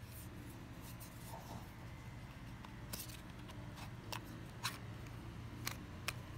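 Plastic housing of a folding handheld fan being handled and its fan head unfolded: light rubbing, then about five sharp small clicks in the second half.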